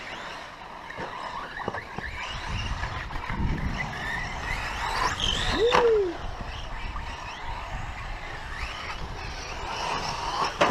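Electric short-course RC trucks racing on a dirt track, their motors whining up and down in pitch as they accelerate and slow. A brief loud rising-and-falling sound comes about six seconds in.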